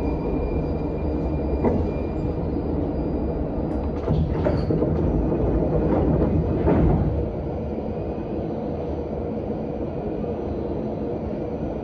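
Prague Metro Line A train with a steady rumble. A sharp click comes about two seconds in, and a louder rush between about four and seven seconds in, after which the rumble settles lower.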